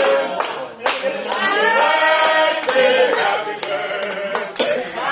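A group of people singing together, with hands clapping along at irregular moments.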